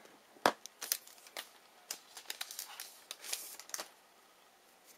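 A Panini basketball trading-card pack wrapper being torn open and crinkled: a run of sharp crackles and tearing sounds, the loudest about half a second in, dying away just before four seconds.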